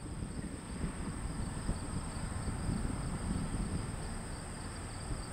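Steady high-pitched insect chorus, crickets or similar, over a low rumbling background noise.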